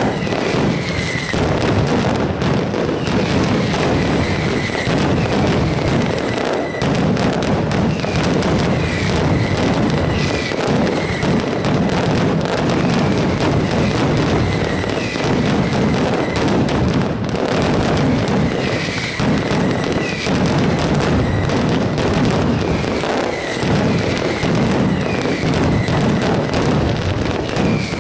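Mascletà firecrackers going off in a dense, unbroken barrage of loud bangs that merge into continuous rumbling. Short whistling glides recur throughout.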